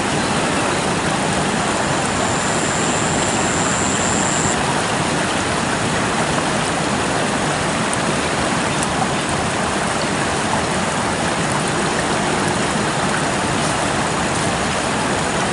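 Steady rush of a fast river flowing over rocks, with a faint high thin whistle lasting a couple of seconds about two seconds in.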